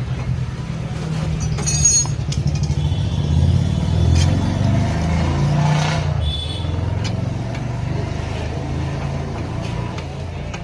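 Car engine running with a low, uneven rumble, with a few faint knocks and clicks from a car whose shock absorber has gone hard and whose fittings have worked loose.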